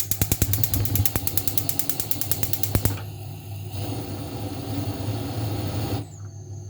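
Gas stove's electric spark igniter ticking rapidly, about ten clicks a second, for about three seconds, then a steady hiss of the burner until it cuts off near the end, over a low hum.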